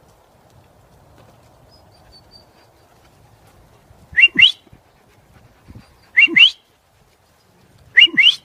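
A person whistling to call puppies: a pair of quick rising whistles, repeated three times about two seconds apart.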